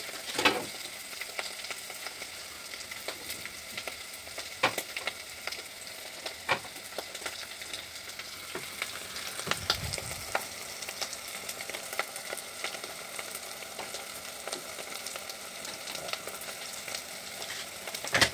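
Mushrooms and asparagus frying in a pot on a gas stove: a steady sizzle with scattered crackles and pops.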